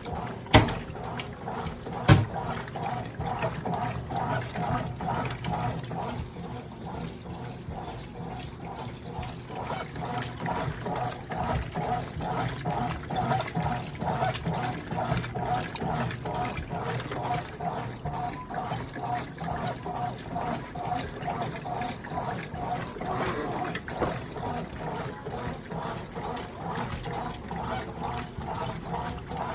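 Brastemp Clean washing machine running with water sloshing in a steady, rhythmic churn. There are two sharp knocks about half a second and two seconds in.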